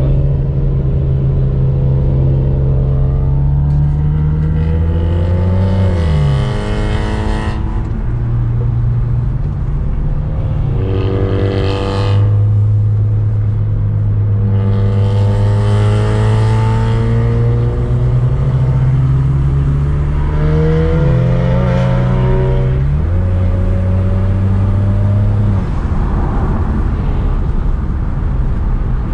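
Car engine pulling hard through the gears: the engine note climbs and drops back at each shift, several times, then settles to a steadier run near the end.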